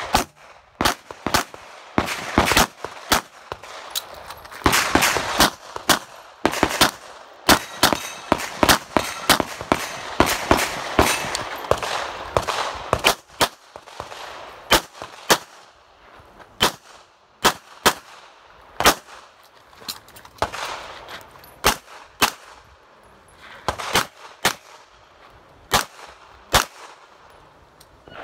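Semi-automatic pistol firing a long run of sharp shots in quick strings, with short pauses between them as the shooter moves from position to position. Each shot has a short echo, and the shots thin out in the second half.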